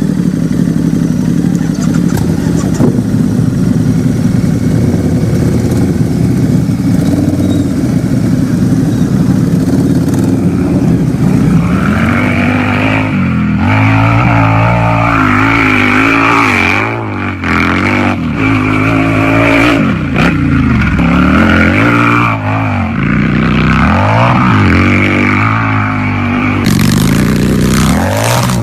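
Motorcycle engine running at a steady idle for about ten seconds, then revved up and down repeatedly, its pitch rising and falling several times.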